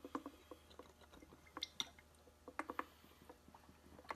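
Rubber bulb of a plastic float-type battery hydrometer being squeezed and released in a lead-acid battery cell, drawing up electrolyte to read its specific gravity. It gives faint soft squishes and small plastic clicks in short clusters, three or four times.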